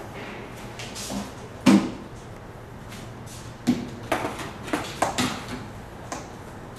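Wooden beehive frames of old dark comb knocking and clattering against one another and the stainless-steel tank of a steam comb press as they are packed in by hand. There are a handful of sharp knocks: the loudest comes under two seconds in, and a quick cluster follows between about four and five seconds in.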